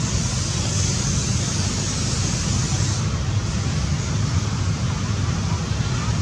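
Steady low outdoor rumble with a hiss over it, the hiss brighter and higher for the first three seconds.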